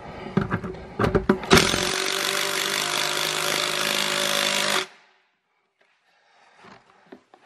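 A few handling knocks, then a cordless impact driver runs steadily for about three seconds, driving a stud screw through the tire tread until the washer behind it is pulled down tight, and stops suddenly.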